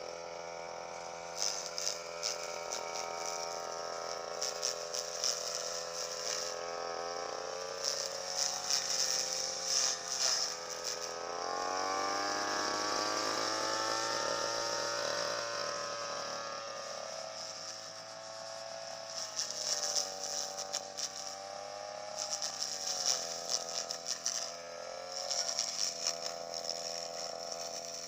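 Small engine of a grass-cutting machine running, revving up in pitch about twelve seconds in and settling back down a few seconds later, with a fast rattling clatter throughout.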